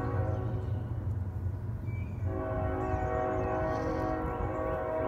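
Train horn blowing two long blasts, the first ending about two seconds in and the second starting straight after and still sounding at the end, over a steady low rumble.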